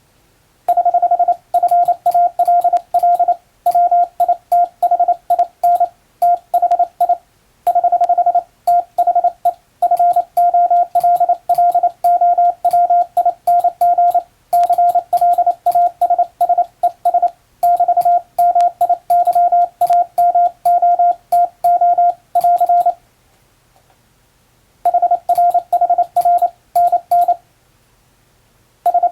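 Morse code (CW) sent by hand on a telegraph key: a steady tone of about 700 Hz keyed on and off in dots and dashes, spelling out international (English-letter) Morse. Each keying starts with a slight click. Groups of characters are broken by short pauses, with two pauses of a couple of seconds near the end.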